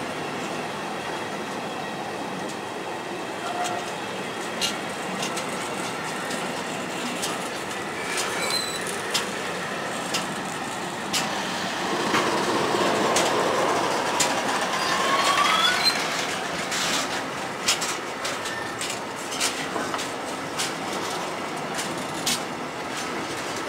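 Container wagons of a freight train rolling slowly past, their wheels clicking over rail joints in an uneven series of knocks. About twelve seconds in the rumble grows louder and a wheel squeal rises in pitch for a few seconds before fading back.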